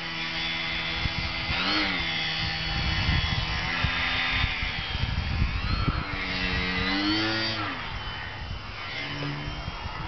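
Electric RC airplane's motor and propeller whining overhead, its pitch rising and falling with the throttle, swelling about two seconds in and again near seven seconds. Wind buffets the microphone in the middle.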